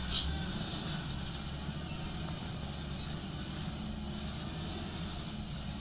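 Hino cargo truck's diesel engine running steadily as the truck goes down a slope. A brief sharp click about a quarter second in.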